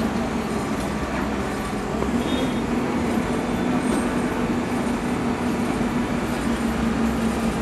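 Steady running noise of a motor vehicle, with a constant low hum.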